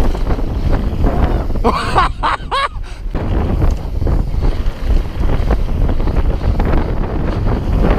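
Wind buffeting the microphone and tyres rumbling over gravel as a YT mountain bike descends a trail at speed. About two seconds in, a short wavering squeal rises and falls for about a second.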